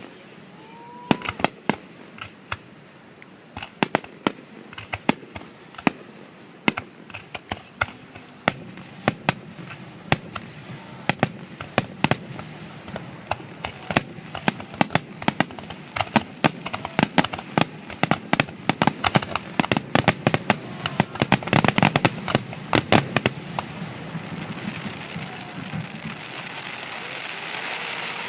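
Fireworks finale: a barrage of sharp cracks and bangs from bursting shells. The bangs come faster and faster into a dense volley about three quarters of the way through, then stop. A rising wash of noise follows them.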